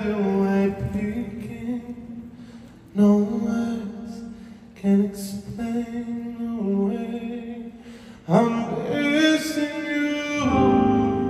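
A solo singer singing a slow ballad live into a microphone: long held phrases with short breaks between them, over a soft sustained backing.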